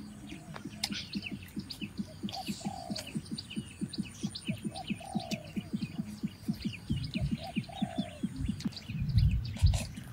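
Birds chirping busily in forest ambience, with a lower two-note falling call repeated about every two and a half seconds over a fast low pulsing. A couple of loud low thumps come near the end.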